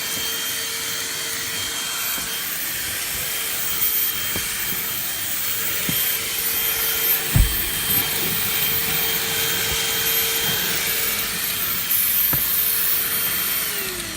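Bissell Auto-Mate lithium-ion cordless handheld vacuum running with its crevice attachment, a steady motor whine over a rushing hiss of air. There are a few knocks, the loudest about seven seconds in. Near the end the vacuum is switched off and the motor winds down.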